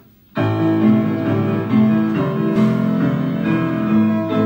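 Piano accompaniment comes in suddenly about half a second in and plays on in sustained, changing chords between sung lines.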